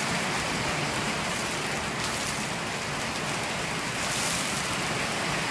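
Heavy rain pouring down in a thunderstorm: a steady hiss.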